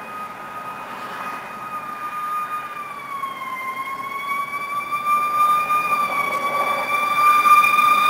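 Fire apparatus siren on a slow, nearly steady wail that dips slightly in pitch about halfway through, growing steadily louder as the responding unit approaches.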